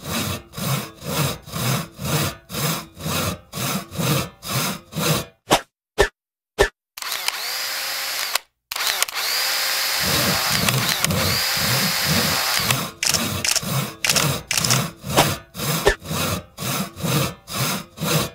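Electronic outro music: a hard pulsing synth beat about two to three times a second, broken by a few sharp hits and then a sustained buzzing passage with sweeping tones in the middle, after which the pulsing returns.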